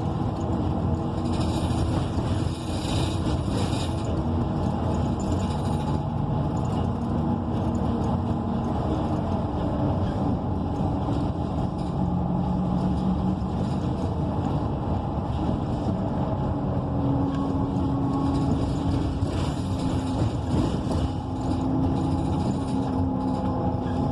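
Interior sound of a 2014 ENC EZ Rider II BRT bus under way, its Cummins Westport ISL G natural-gas engine and Allison B300R automatic transmission running, with road noise. The engine note shifts in pitch a few times as the bus drives along.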